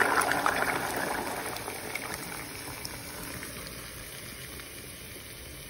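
Hot olive oil and fried garlic sizzling in a pan as chopped tomatoes land in it. The sizzle is loud at first and dies down steadily over a few seconds as the tomatoes cool the oil.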